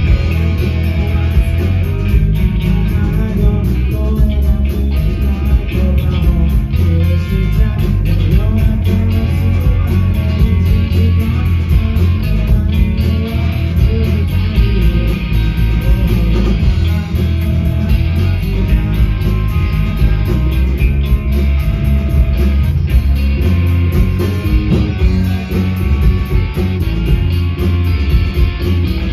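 A live rock band playing loudly: electric guitars, bass and drum kit with a steady beat, and a singer at the microphone.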